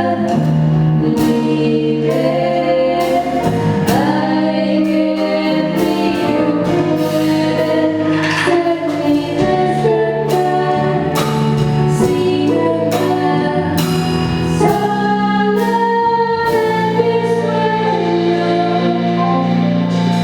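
A group of voices singing in harmony over instrumental accompaniment, with sustained chords and regular struck or plucked note attacks.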